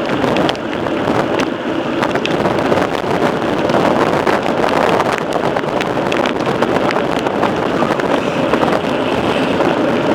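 Wind buffeting the microphone of a mountain bike rider's camera while riding, with frequent small rattles and knocks from the bike over rough ground.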